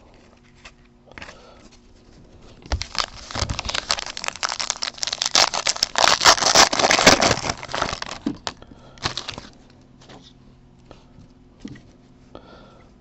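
Foil wrapper of a baseball card pack being torn open and crinkled by hand. There is a run of dense crackling from about three seconds in to about eight, and a shorter crinkle just after nine seconds.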